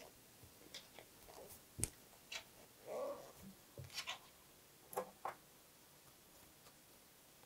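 Faint handling sounds of a crochet hook working thick 10 mm yarn: scattered short clicks and soft rustles as stitches are pulled through, with a brief rustle about three seconds in.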